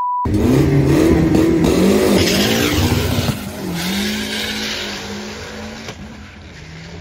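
A short electronic beep, then a drag-race vehicle's engine revving hard as it launches down the strip. The revs climb and drop back twice at the gear changes, then the engine note settles and fades as the vehicle pulls away.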